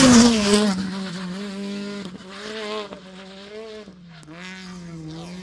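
Peugeot 208 rally car passing close at speed, loudest right at the start. Its engine's revs then rise and fall repeatedly as it pulls away, fading steadily.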